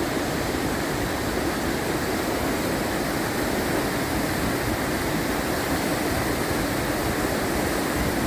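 Groot River in flood after rain, its fast water rushing with a steady, even noise.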